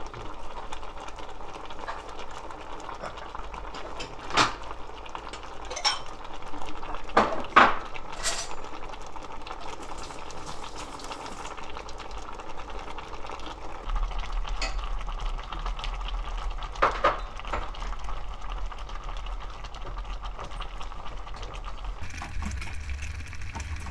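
Pot of spicy sandfish stew bubbling at a steady boil, with a few sharper clicks standing out now and then.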